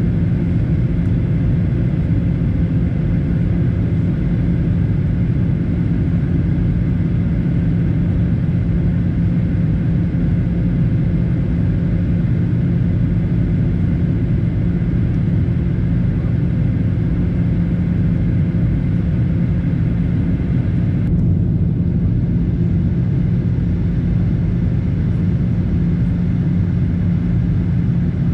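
Airliner cabin noise in flight: the steady drone of the engines and rushing air, with a strong low hum.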